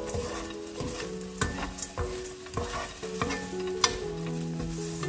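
Wooden spatula stirring and scraping dried baby anchovies, sliced almonds and pumpkin seeds around a hot nonstick wok as they stir-fry, a dry rustling with half a dozen sharper scrapes. Soft background music underneath.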